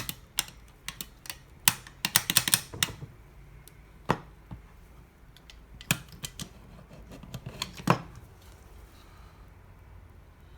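Clicks and clacks of a heavy-duty stapler being handled and opened to load it: a quick cluster of clicks about two seconds in, then single sharp clicks a couple of seconds apart.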